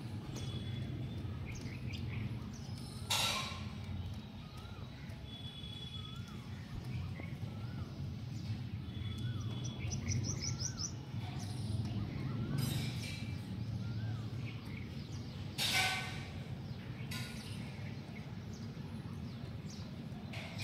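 Small birds chirping and calling intermittently over a steady low rumble, with two brief loud noisy bursts, one about three seconds in and one near sixteen seconds.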